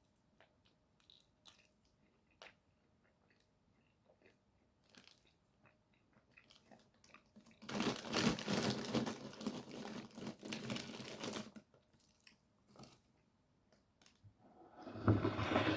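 A person chewing food close to the microphone: small scattered mouth clicks, then about four seconds of loud crunchy chewing a little past the middle, and more chewing noise starting near the end.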